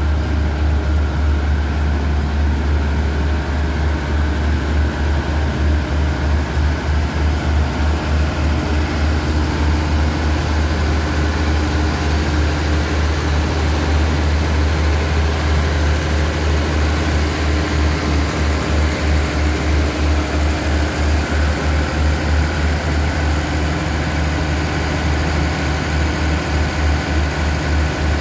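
Diesel engine of a standing passenger train idling: a steady low rumble with a quick flutter in it and a faint steady hum above.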